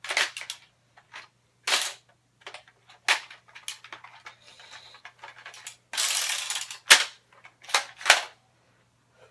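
Plastic Nerf Elite dart blaster being worked: about seven sharp clacks and snaps at uneven intervals, with a longer rasping scrape about six seconds in.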